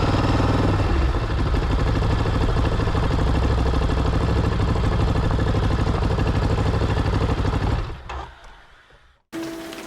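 Ducati DesertX's 937 cc V-twin engine running at low revs with a steady pulsing beat, fading out about eight seconds in. After a moment of silence, music starts near the end.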